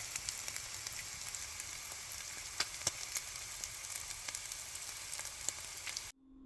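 Food sizzling in a frying pan: a steady hiss with frequent small pops, cut off abruptly about six seconds in.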